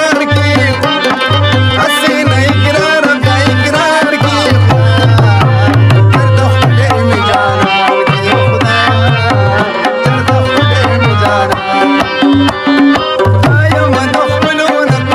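Pashto folk music: a tabla plays a steady rhythm under harmonium and plucked rabab.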